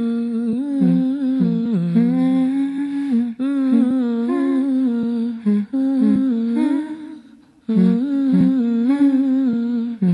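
Music track of wordless, humming-like voices holding notes and sliding between pitches. It fades out briefly about seven seconds in, then resumes.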